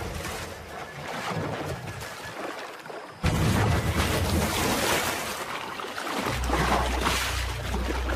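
Water splashing as a jaguar plunges into a river to attack a caiman: a sudden splash about three seconds in, then churning water. Low, sustained music notes come in near the end.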